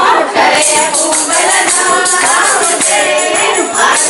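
Harari women singing a religious song into microphones, the amplified voices rising and falling over a jingling percussion that keeps time.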